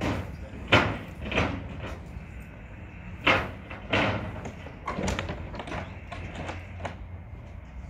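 A series of sharp metallic bangs and clanks from the steel parts of a Waltzer fairground ride being assembled, the loudest about a second in, over a low steady hum.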